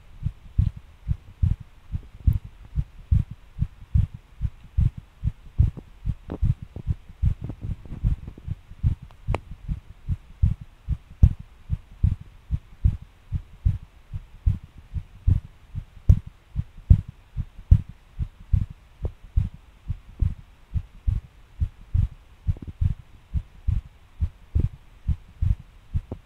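A person's heartbeat recorded close up: fast, hard low thumps, more than two a second, uneven in spacing and strength. It is an irregular, pounding rhythm.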